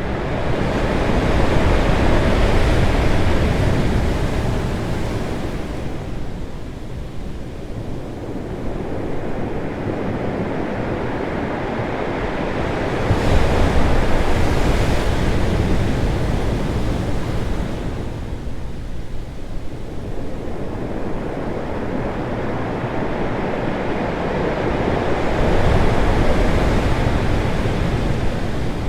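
Ocean waves crashing on rocks: a continuous loud rush of surf that swells and falls back three times, about every twelve seconds, with a deep rumble underneath.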